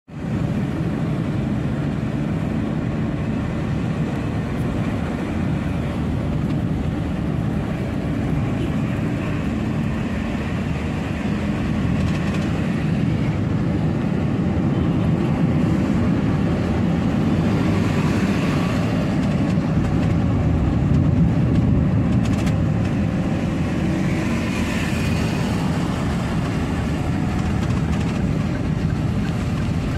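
Steady rumble of a vehicle on the move, engine and road noise, swelling briefly twice in the second half.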